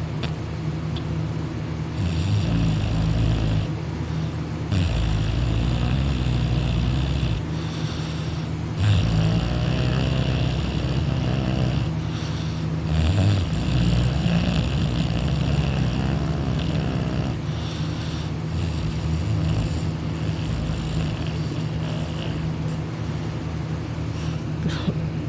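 A young man snoring loudly on his back with his mouth open: a run of long, rough snores a few seconds apart.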